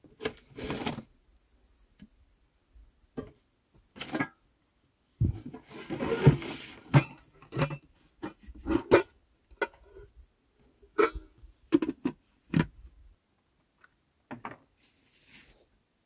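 Twigs, bark and kindling being handled and laid on a small campfire that is being coaxed alight: a dozen or so irregular knocks and rustles, busiest about five to seven seconds in.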